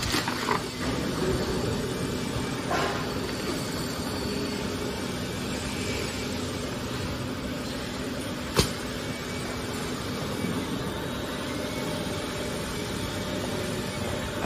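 Kraft paper slitting and rewinding machine running: a steady mechanical hum with a low steady tone, a few brief rattles in the first three seconds, and one sharp click about eight and a half seconds in.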